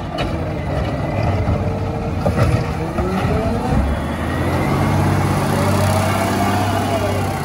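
CNG Peterbilt 520 garbage truck with a McNeilus ZR side-loader body, its engine running and revving up and down. A whine over the engine rises in pitch about three seconds in, then swells and falls again near the end.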